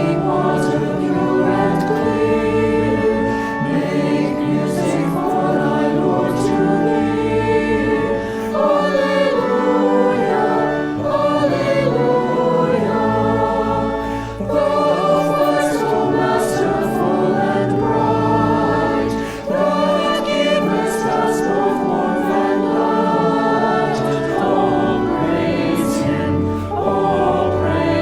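A choir singing a worship song with musical accompaniment.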